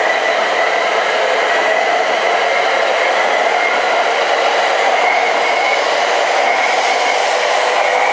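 E5 series Shinkansen, coupled to an E6 series Komachi, departing and running past close by, gathering speed. A steady rush of wheels and air with a high whine that rises slowly in pitch.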